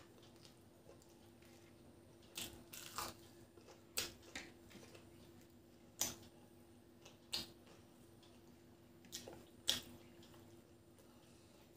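Close-miked eating by hand: wet chewing and lip-smacking of rice and fried fish, with the squish of rice being mixed with the fingers. It comes as a string of short, sharp wet smacks, roughly one every second or so.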